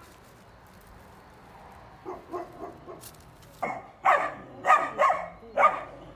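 A dog barking repeatedly: a few quieter barks about two seconds in, then five loud barks in quick succession in the second half.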